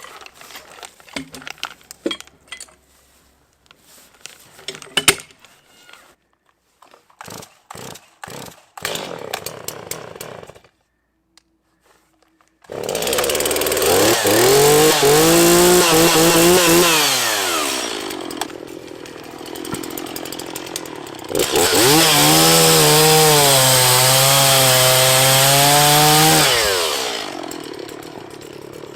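Chainsaw cutting a log twice: revved up hard for about four seconds, dropping back to idle, then revved again for about five seconds, its pitch sagging as the chain bites, before settling to idle near the end. Before the cuts, a series of sharp knocks and clicks.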